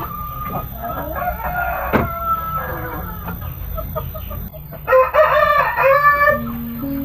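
Chickens clucking, then a rooster crowing loudly for about a second and a half, about five seconds in.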